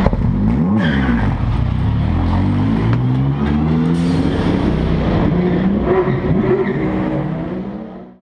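Nissan GT-R Nismo GT3 race car engine revving hard and accelerating, its pitch falling and climbing again in steps as it shifts up. The sound fades out shortly before the end.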